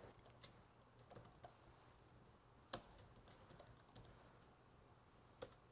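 Faint, scattered laptop keyboard keystrokes: a few sharp clicks spread over several seconds, the clearest a little under halfway through, against near silence.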